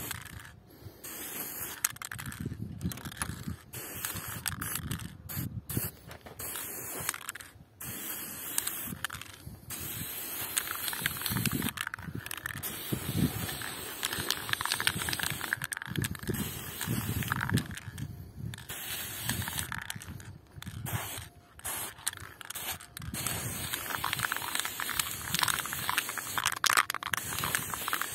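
Aerosol can of acrylic spray paint hissing in repeated spurts, with short breaks between passes as it is sprayed onto wood.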